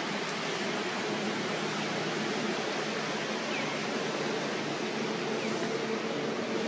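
Steady outdoor background hiss with a faint low hum underneath, unchanging throughout.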